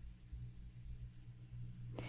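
Quiet room tone with a faint, steady low hum.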